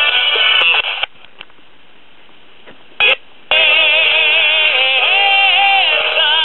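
Drexel AM/FM pocket transistor radio being tuned across the dial through its small speaker. A station drops out about a second in, leaving only faint hiss, with a brief blip at about three seconds. About halfway through, another station comes in playing music with singing.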